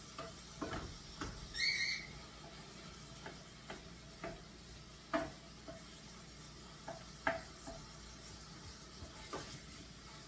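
A spoon stirring and scraping ground meat frying in a stainless steel pot: a low steady sizzle with irregular knocks of the spoon against the pot. A brief high-pitched squeak sounds a little under two seconds in.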